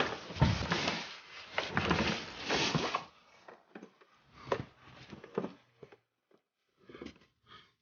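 Clattering and rustling of objects being handled, with sharp knocks, busiest for the first three seconds, then a few scattered knocks and clicks.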